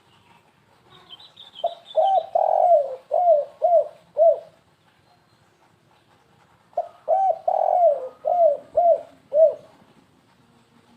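Spotted dove (tekukur) cooing: two phrases a few seconds apart, each a stuttering run of about six hoarse, arching coos, the kind of 'kuk-3 gagap' song kept birds are prized for. Faint high chirps of a small bird come just before the first phrase.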